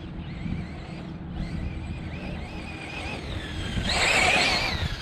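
Brushless electric motor of a 1/8-scale Losi 8ight RC car whining as it is driven, the pitch wavering up and down with the throttle. About four seconds in it is at its loudest, with a rush of tyre and gravel noise, then the whine falls away.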